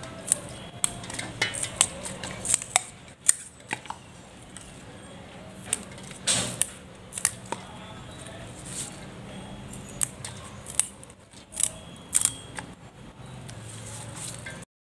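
Crisp, irregular snapping of fresh water spinach stems being broken by hand into short lengths over a metal basin, a dozen or more snaps.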